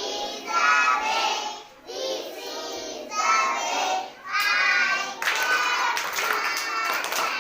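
A group of young children singing a rhyme together, with hand claps joining in during the second half.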